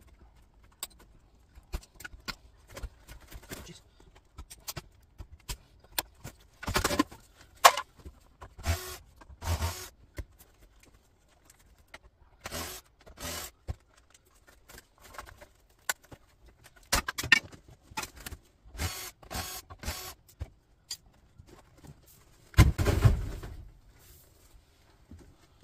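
Monitor stands being unscrewed and taken apart: short whirring runs of a cordless drill-driver among clinks and rattles of screws and metal parts, with a louder clatter near the end.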